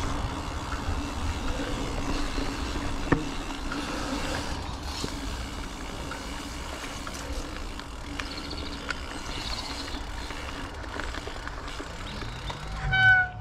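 Mountain bike being ridden along a woodland trail: a steady low rumble and rattle from the tyres and the bike, with scattered clicks and a sharp knock about three seconds in. A short high-pitched squeal comes near the end.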